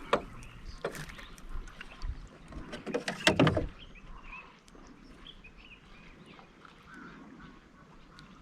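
Sharp knocks and splashing from handling in a small boat, the loudest burst about three seconds in, then quieter with faint bird calls.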